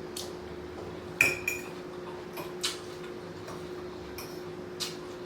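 Eating at a plate: scattered light clicks and clinks of utensils or food against a dish, the loudest a short ringing clink a little over a second in, over a steady hum.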